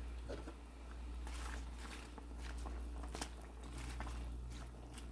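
Faint kitchen handling noises, scattered light clicks and rustles, over a steady low hum.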